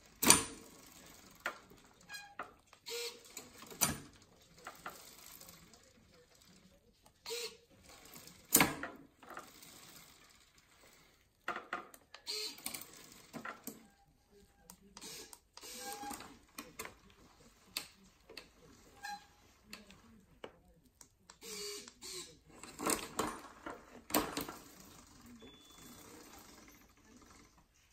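Handcycle drivetrain shifting gears with an XShifter electronic shifter as the hand cranks turn: irregular mechanical clicks and short rattling bursts from the chain and derailleur, with a few louder clacks.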